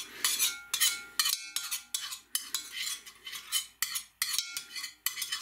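A steel tablespoon scrapes over and over around the inside of a hot cast-iron roaster in quick strokes, several a second. It is spreading a spoonful of oil over the hot metal to season the pan.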